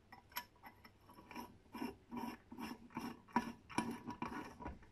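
Steel threaded rod of a crankshaft installer tool being spun by hand into the tool's nut, the threads scraping in a run of short strokes, about two or three a second.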